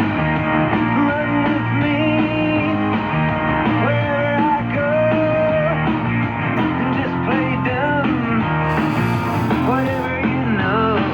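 A song with guitar and a singing voice, received on a shortwave radio, its sound cut narrow as broadcast radio is. About nine seconds in, a burst of hiss lasts about a second.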